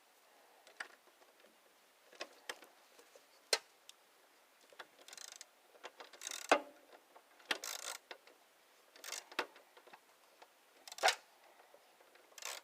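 Irregular clicks, clinks and short rasps of hand tools working on the metal parts of a lawn tractor, with sharper knocks about six and a half and eleven seconds in.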